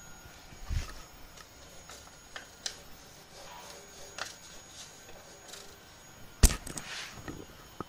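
Scattered light clicks and taps of hands working on a 3D printer while levelling its bed, with one sharper knock about six and a half seconds in.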